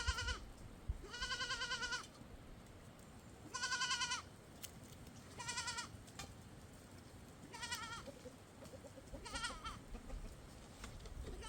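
Sheep bleating: six wavering bleats in a row, about one every two seconds, some higher and some lower in pitch, as if from several animals.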